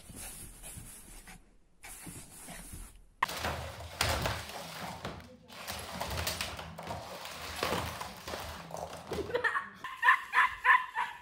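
A dog barking rapidly near the end, with sharp barks about three a second, after a stretch of indistinct household noise.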